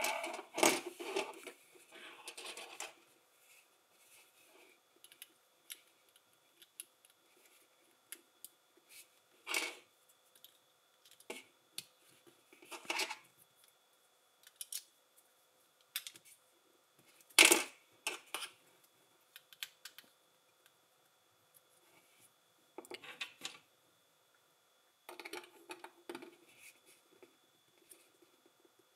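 Plastic LEGO pieces being handled and snapped together: a flurry of clicks and rattles at the start, then single sharp clicks several seconds apart, the loudest about 17 seconds in, and short clattering rattles near the end.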